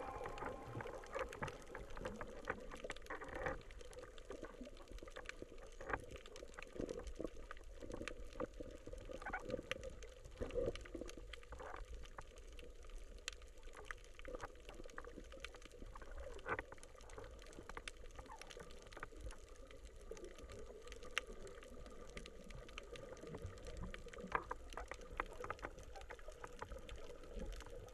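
Faint underwater ambience, heard through a camera's waterproof housing: a low hiss with many irregular small clicks and crackles, a few louder ones among them.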